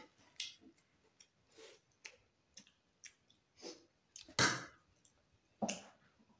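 Eating sounds: chewing and mouth noises with scattered small clicks, and a few brief louder noisy bursts, the loudest about four and a half seconds in and another near the end.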